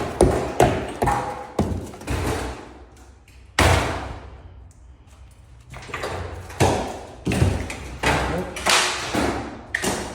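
Drywall being broken open and torn away: a series of knocks and thuds, each with a short crumbling, scraping tail, the loudest a little over a third of the way in, with a lull before the strikes resume.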